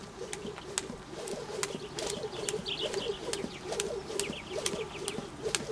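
A jump rope ticking against the dirt at a steady beat of about two strikes a second as it turns. Birds coo and chirp behind it.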